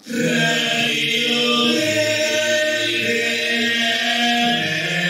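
Voices chanting together in long held notes, stepping to a new pitch every second or two; it starts suddenly.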